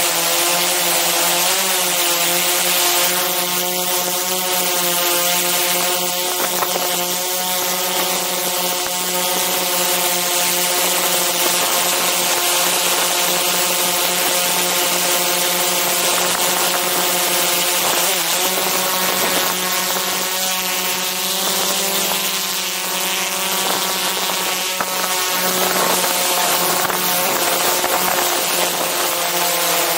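Multirotor drone's motors and propellers running steadily, heard close up: a loud buzzing whir made of several tones that waver slightly in pitch as the motors adjust, with a brief dip in pitch about two-thirds of the way through.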